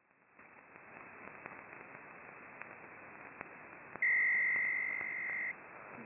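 Shortwave receiver in upper-sideband mode tuned across the 8 MHz maritime band: static hiss with faint clicks, swelling back after a brief dropout at the start. About four seconds in, a steady high tone comes in loud, holds for about a second and a half while easing slightly, then stops abruptly.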